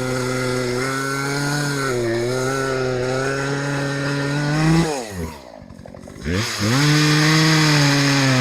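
Chainsaw engine running at steady high speed; about five seconds in its pitch drops sharply, as if coming off the throttle, then it revs back up about a second later and runs steadily again.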